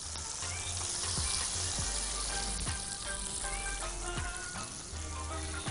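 Hot garlic and dried coriander fried in ghee (ta'leya) poured from a frying pan onto lentil-soaked bread, sizzling as it hits. The sizzle builds over the first second and then holds steady.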